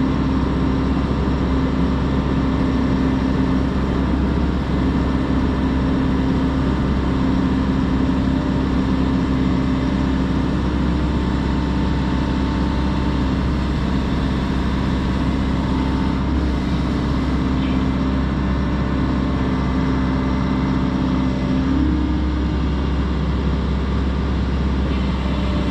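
Volvo excavator's diesel engine running steadily under work, its pitch stepping up slightly about three-quarters of the way through.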